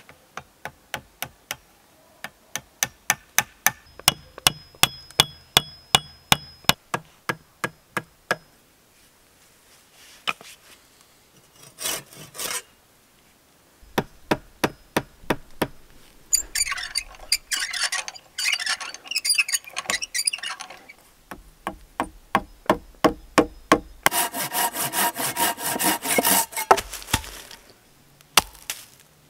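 Hand tools working wooden log poles. First comes a long run of sharp, evenly spaced knocks, about two or three a second. After that, wood is shaved and scraped, with strikes mixed in. A dense stretch of fast rasping strokes follows, and a few hatchet blows fall into the wood near the end.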